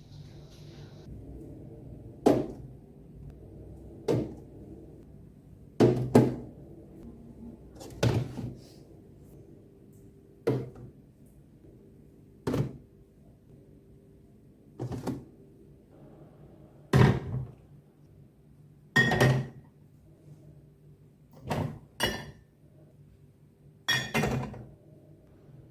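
A series of knocks and clatters, roughly one every two seconds, as items are set down and handled while a refrigerator is cleaned out. Some strikes carry a brighter clink, and a faint low hum runs underneath.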